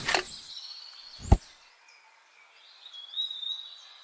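A single sharp thump about a second in, then high, thin bird-like chirps near the end.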